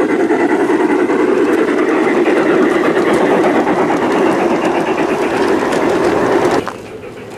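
Garden-railway model freight cars rolling past, a steady dense rattle and clatter of small wheels on the track that stops abruptly near the end.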